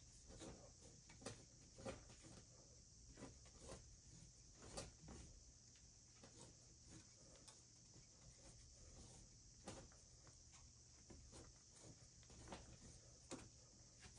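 Near silence: faint scattered clicks and taps of hands handling a copper water pipe and valve, over a steady faint hiss and low hum.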